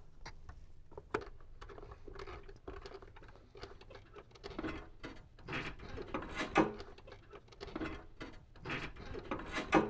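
Amplifier power wire being fed through a drilled grommet in the firewall: quiet, irregular rustling, scraping and light clicks of the cable being pushed through.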